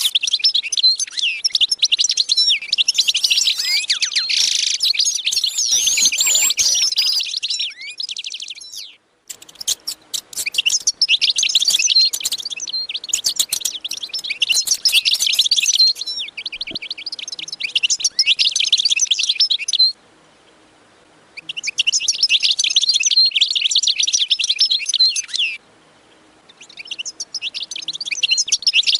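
A flock of small birds chirping rapidly and densely, broken by a few short, abrupt gaps.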